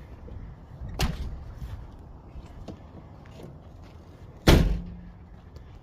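Chevy Cobalt SS car doors slamming shut: a lighter slam about a second in, then a much louder one about four and a half seconds in, with a short low boom after it.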